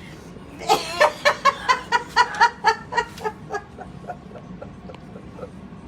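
A pet parrot giving a rapid run of about a dozen clucking calls, about four a second, loudest at the start and fading out after about three seconds.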